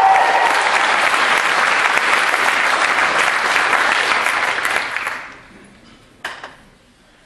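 Audience applauding in a theatre auditorium, dying away about five seconds in; a single short knock sounds about a second later.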